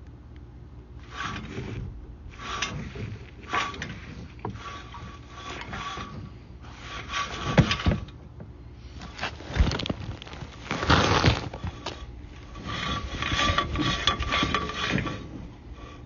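Sewer inspection camera and its push cable scraping and rubbing along the inside of a sewer pipe, in irregular bursts with a few sharper knocks, under a faint steady high tone.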